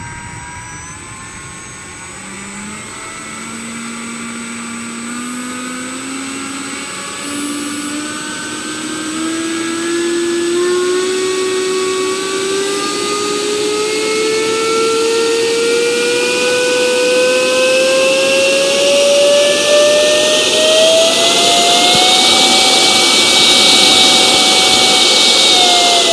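64 mm electric ducted fan of a HobbyKing Stinger Mk2 RC jet on a static ground run: a whine that climbs slowly in pitch and loudness for about twenty seconds as the fan spools up. It holds at its highest pitch for a few seconds, then starts to drop right at the end.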